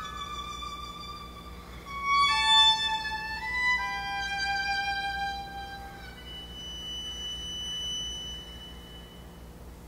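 Amplified solo violin playing slow, sustained bowed notes that step downward in pitch. A single high, thin held tone follows and fades away near the end.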